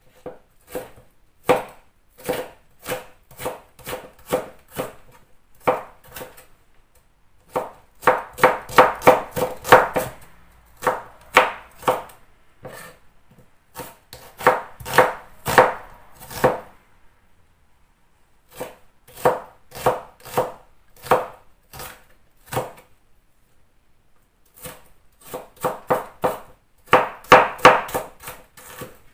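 Kitchen knife chopping a red onion on a wooden cutting board: sharp knife strikes on the board in runs of quick strokes, with short pauses between runs.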